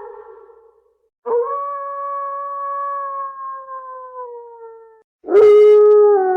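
Wolf howling: one howl fades out, then after a short gap a long howl rises quickly and slowly sinks in pitch over about four seconds. A second, louder howl begins near the end, slightly lower and falling.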